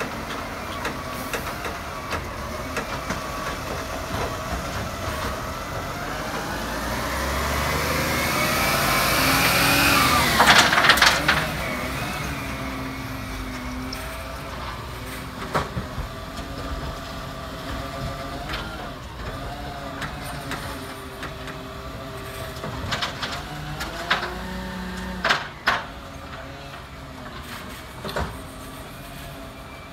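Volvo side-loader recycling truck's diesel engine pulling away and passing, its pitch rising for several seconds to a loud peak about ten seconds in. A brief loud burst of noise marks a gear change, and the engine then runs lower as the truck moves off, with a few short knocks from the truck.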